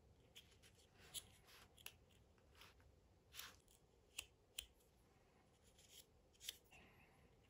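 Faint, scattered clicks, snips and short scrapes of small laser-cut wooden model parts being cut out of their sheet and handled, with one slightly longer scrape about three and a half seconds in.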